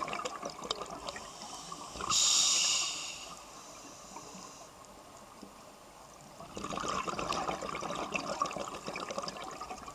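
A scuba diver's breathing heard underwater. Exhaled bubbles crackle and gurgle, a loud hiss of inhalation through the regulator starts about two seconds in and fades, and the bubbles return at about six and a half seconds.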